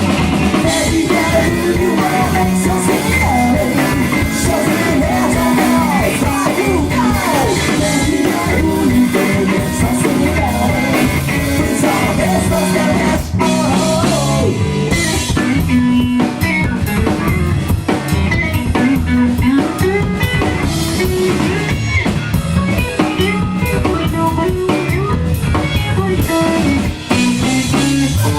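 Live rock band playing loudly: drum kit, electric guitar and bass, with a voice singing over them.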